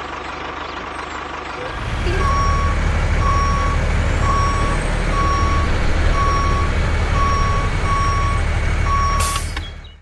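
Truck engine running, with a reversing alarm beeping steadily about once a second from about two seconds in. A short hiss comes near the end.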